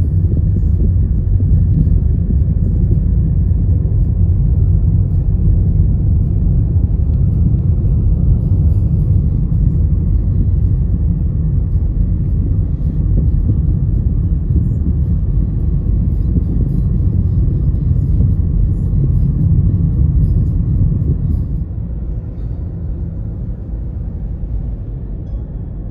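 Steady low rumble of a car on the move, heard from inside the car: tyre, road and engine noise. It drops to a lower level about 21 seconds in.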